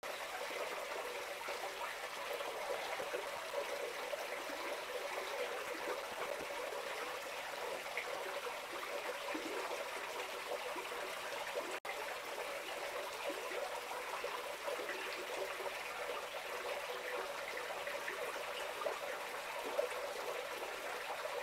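Steady trickle of water running through a concrete catfish hatching tank, where water is kept flowing to carry away fouled water. The sound cuts out for an instant once, just before halfway.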